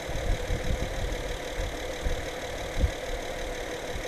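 2013 Honda Pilot's 3.5-litre V6 idling steadily while the oil level is checked, with a few low thumps, the loudest near the end.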